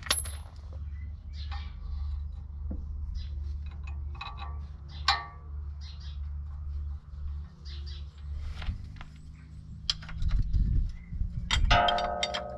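Small metallic clinks and knocks of tools and metal parts as a tractor's four-wheel-drive shaft is fitted by hand from underneath. Near the end comes a louder metal clang that rings on.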